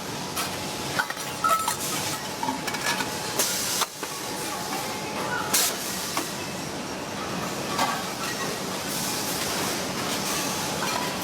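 Factory machinery running with a steady hiss, broken by several short bursts of hissing air or spray and a few light metallic clinks.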